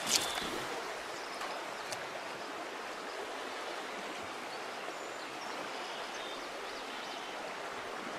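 Steady rush of a river's flowing current. A short sharp click right at the start is the loudest moment.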